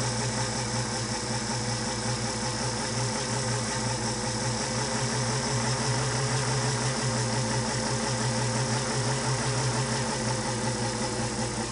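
Singer-made Spartan (327K-type) sewing machine running slowly under its own motor: a steady motor hum with the whir of the needle bar and take-up lever mechanism. It is turning over while the take-up lever's hinge-stud set screw is tightened to take out binding.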